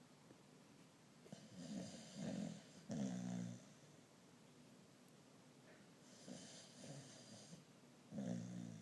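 A sleeping pet snoring: three rattly snores in quick succession between about one and a half and three and a half seconds in, a fainter hissing breath around six to seven seconds, and one more snore near the end.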